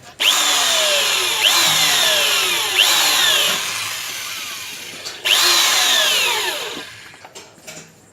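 Electric drill drilling holes in an electrical main board, run in spurts. Each spurt's whine jumps up and then sinks in pitch as the bit loads. A second run starts about five seconds in and winds down near the end.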